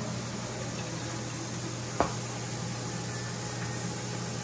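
Steady low electrical hum and hiss of kitchen background noise, with a single sharp click about two seconds in.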